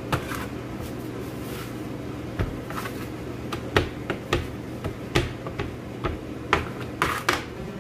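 Wooden rolling pin rolling out dough on a floured board, with irregular sharp knocks and clicks as the pin and hands strike the board, over a steady low hum.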